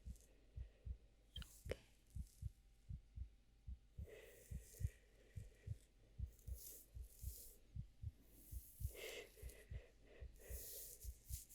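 A quiet, steady heartbeat, each beat a soft double thump. Brief soft hissing, rustling sounds come and go several times over it.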